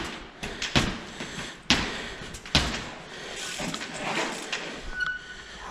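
Trials bike hopping up concrete steps: sharp thuds of the wheels landing on the steps, the three loudest about a second apart in the first three seconds, then lighter knocks.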